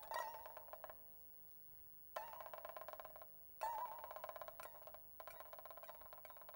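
Pipa played softly: a note dies away to near silence, then two notes are struck sharply about two seconds in and again a second and a half later, each sustained by rapid tremolo picking and fading, the second with a wavering pitch bend. Quieter fast tremolo follows near the end.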